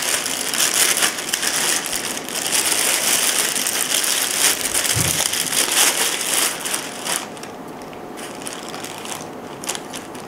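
Plastic packaging crinkling and crackling as it is handled and pulled off the rifle scope. It dies down to occasional small clicks about seven seconds in.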